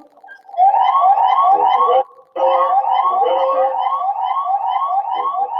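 Electronic alarm siren sounding in rapid rising whoops, about three a second. It starts about half a second in and cuts out briefly just after two seconds in before resuming.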